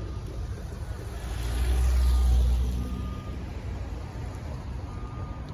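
A car driving past close by over the crossing: engine and tyre noise with a deep rumble that swells to its loudest about two seconds in and then fades, over steady traffic noise.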